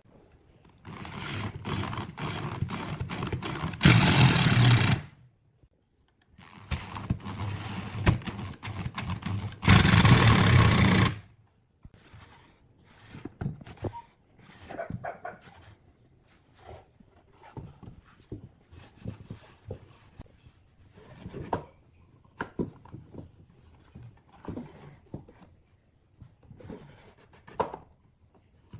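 Wood being worked by hand: two long scraping passes, each ending in a louder stretch of about a second, then scattered knocks and clatter of wooden pieces being handled.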